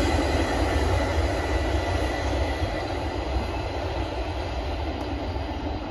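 NS rail maintenance train's last cars rolling past, wheels rumbling on the rails. The rumble fades steadily as the end of the train moves away.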